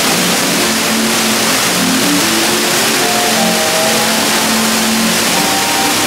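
Artificial waterfall pouring steadily over a stone façade into a pool: a constant, even rushing of falling water.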